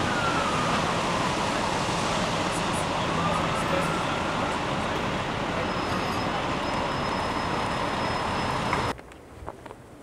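Emergency vehicle siren wailing in slow rising and falling sweeps over loud, steady city street traffic noise, with a low engine hum in the first few seconds. It all cuts off suddenly about nine seconds in.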